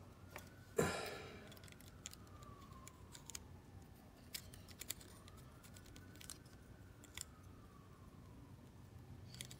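Faint clicks and taps of hard plastic parts as a Bandai Super Minipla Red Lion figure is handled and posed. The loudest is a knock about a second in.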